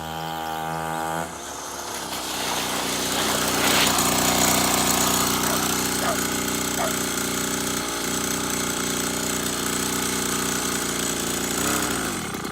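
Small 49cc scooter engine running; its speed picks up about a second in and it grows louder, then holds steady until it stops sharply at the end.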